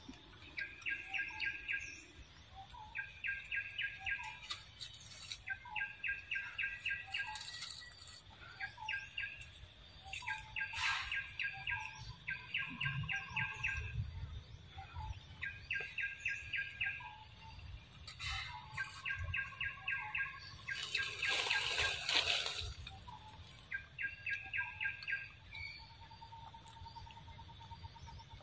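A songbird repeating a fast trilled phrase, a quick run of evenly spaced notes about a second long, over and over every couple of seconds. A brief burst of rustling noise comes about three-quarters of the way through.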